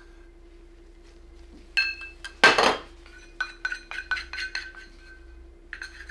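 Utensil clinking against soap-making containers: a couple of ringing clinks, a louder clatter about two and a half seconds in, then a quick run of light ringing taps, with a few more near the end.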